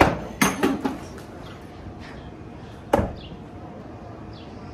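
Darts striking a dartboard and the door around it: a quick run of three sharp thuds in the first second, then one more about three seconds in.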